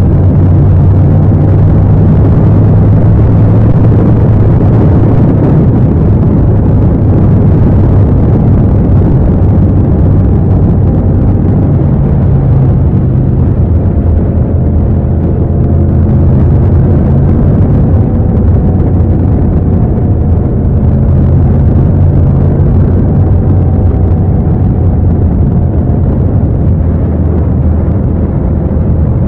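Yamaha MT-07's 689 cc parallel-twin engine running loud and close at a steady engine speed while the bike cruises, with no revving up or down.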